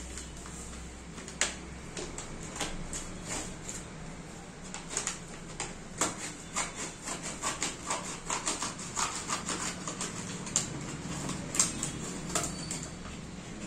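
Scissors snipping through a crumpled kraft-paper mailer bag, with the paper crinkling and rustling under the hands; the snips come quicker and closer together in the second half.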